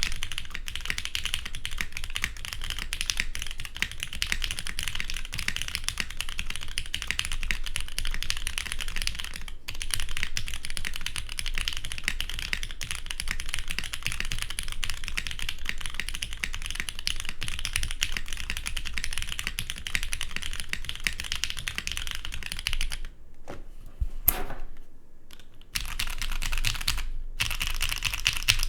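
Fast, continuous typing on a Saevus Duality TKL mechanical keyboard with an aluminum plate, lubed and filmed pre-retool Cherry MX Black linear switches, and GMK keycaps. About three-quarters of the way through, the typing stops for a few seconds with only a few single keystrokes, then the rapid typing resumes.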